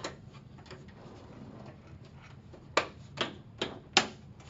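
Sharp clicks and knocks of parts and tools being handled on a computer case: one at the start, then four in quick succession about 0.4 s apart near the end.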